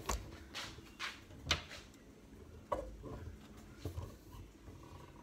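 A few separate knocks and clicks of a wooden kitchen cabinet door being handled and opened.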